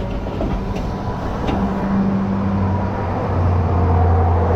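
A vehicle engine running with a steady low hum over road noise, growing louder about three seconds in.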